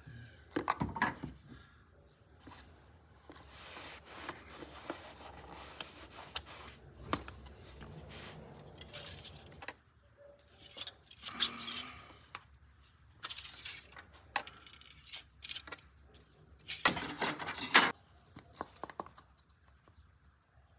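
Plastic oil bottles and a funnel handled while refilling the engine oil: intermittent clinks, clicks and rustling scrapes, with several louder stretches of rustling.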